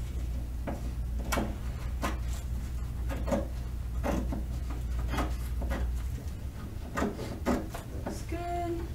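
Scattered light knocks, taps and rubbing of a frame and canvas being handled and set in place on a worktable. A low steady hum underneath stops about two-thirds of the way through.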